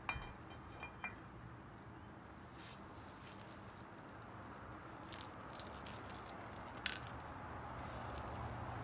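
Light metallic clinks of steel lug nuts and an aluminium wheel spacer being handled at a wheel hub. There are two sharp ringing clicks near the start and a scatter of small clinks about five to seven seconds in.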